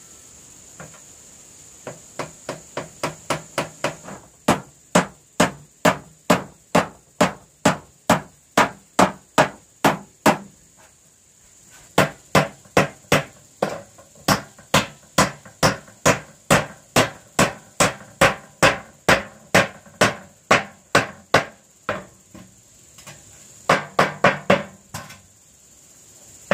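Hammer driving nails through a rusty corrugated metal roofing sheet into a wooden frame. It starts with a run of quicker, lighter taps, settles into steady strikes about two a second, pauses briefly about halfway, and ends with a quick flurry of blows.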